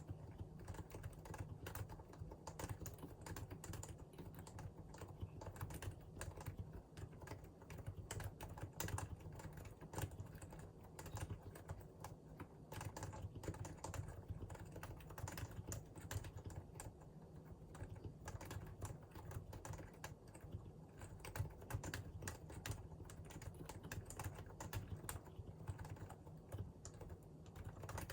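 Continuous fast typing on a Realforce R2 PFU limited edition keyboard's Topre electrostatic capacitive switches: a dense, even stream of soft keystrokes with no pauses.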